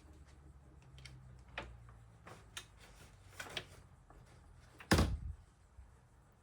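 A few light clicks and knocks, then one much louder knock about five seconds in.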